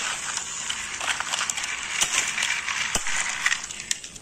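Plastic toy trains and track pieces being handled and lifted off the track, with small plastic clicks and rattles and one sharper knock about three seconds in.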